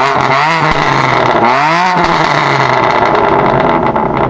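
BMW M3 F80's twin-turbo straight-six with an Akrapovic Evolution race exhaust, revved in several quick rises and falls, then held steady. Sharp crackles from the exhaust come near the end.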